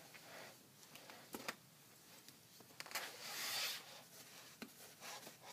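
Soft cloth rustling and a few light taps as a baby sock is pulled onto a vinyl reborn doll's foot. The longest and loudest rustle comes about three seconds in.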